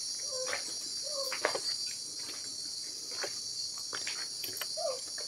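Steady, high-pitched chorus of crickets. Over it an unidentified animal gives a short, low call twice, about half a second and a second in, and a higher call that rises and falls near the end; a bird is guessed. A few knocks are also heard.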